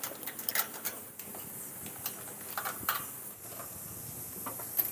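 Scattered light clicks and taps at irregular intervals, a few louder ones about half a second in, near three seconds and near the end, over a faint steady hiss.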